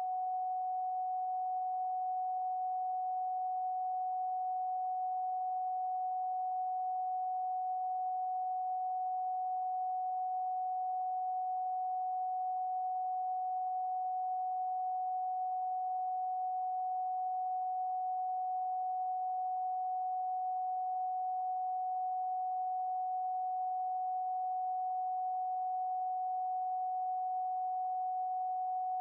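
Electronically generated pure sine tone, used as a spiritual "protection frequency" and held perfectly steady at one mid pitch. A fainter, very high steady tone sits above it.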